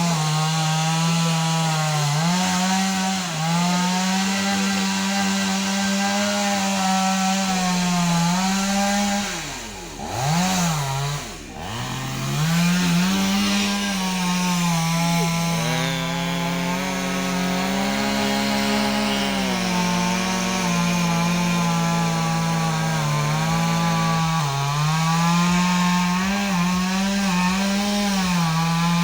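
Chainsaw running at high revs as it cuts through a tree, the engine pitch wavering under the load of the cut. About ten seconds in the engine speed drops sharply twice, then picks up again.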